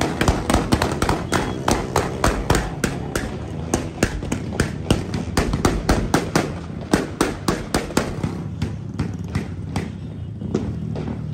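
A fast, irregular run of sharp cracks, several a second, over a steady low hum, thinning out near the end.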